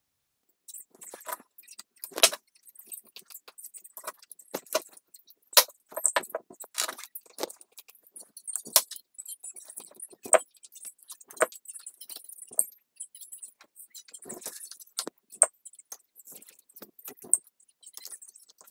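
Irregular small metallic clicks and clinks, starting about a second in: a hex screwdriver working screws out of the metal sprocket hub of a Lesu SK500LC RC excavator's track drive as the gears are taken apart.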